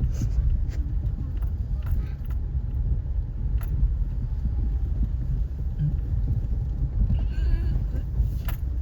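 Inside a moving car: a steady low rumble of engine and tyres on a slushy, icy road, with scattered clicks and knocks. A brief voice is heard near the end.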